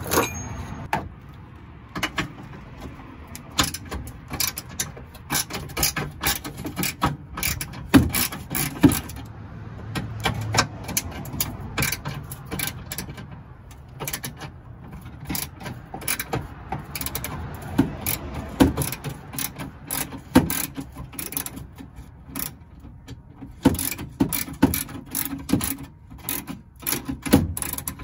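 Hand ratchet clicking in quick runs as it loosens the 10 mm bolts holding a truck fog light, with short pauses between runs.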